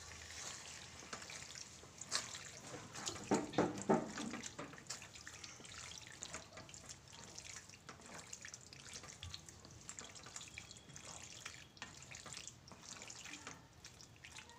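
Wooden spatula stirring macaroni through a watery tomato sauce in a steel pan: wet squelching and scraping with many small clicks against the metal. A brief pitched sound about three to four seconds in.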